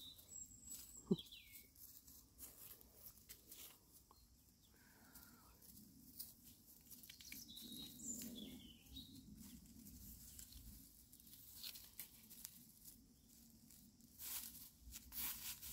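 Faint rustling and crackling of chickens scratching and pecking through dry bamboo leaf litter, with a few faint high chirps. The crackles come more thickly near the end.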